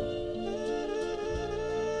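Mellow instrumental background music with sustained chords and a soft low beat.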